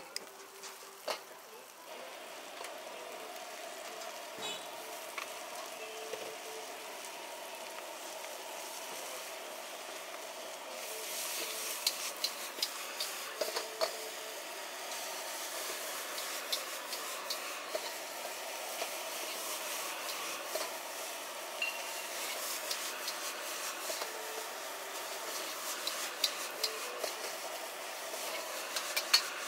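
Rice noodles sizzling in a wok over a gas burner as they are stir-fried, with the metal tongs and ladle scraping and clicking against the wok. The sizzle grows louder and hissier partway through.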